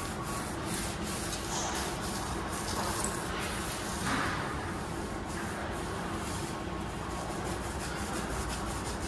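A sudsy car tyre being scrubbed, a continuous uneven rubbing of strokes across the rubber.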